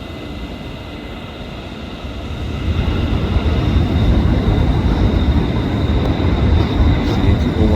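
A train moving past the platform, its low rumble growing louder about two and a half seconds in and then holding steady.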